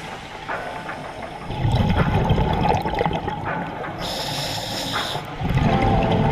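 Scuba diver breathing through a regulator underwater. A loud bubbling rush of exhaled air comes about a second and a half in, then a hissing inhalation, then another exhaled bubble rush near the end.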